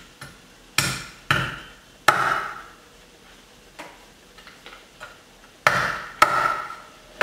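Cleaver chopping through a lobster's legs onto a wooden cutting board: three sharp chops about a second in, then after a pause two more near the end, each with a short ring after the strike.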